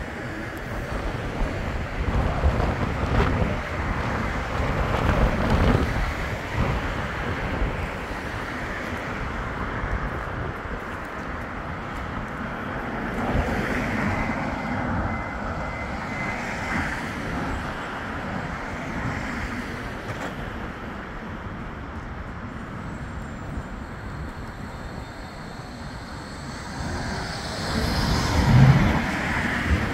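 Bombardier Flexity 2 light-rail tram running in to the stop along the track, with wind rumbling on the microphone. It gets louder near the end as the tram moves off close past.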